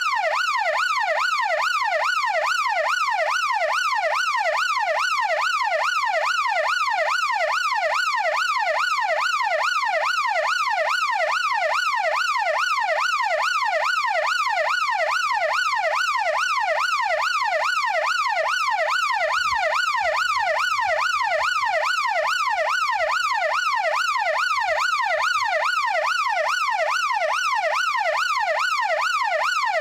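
Emergency-vehicle yelp siren sweeping rapidly up and down in pitch, about three sweeps a second, at a steady loud level.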